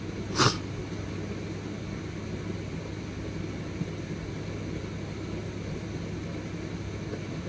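Steady low background hum and hiss, with one brief sharp sound about half a second in.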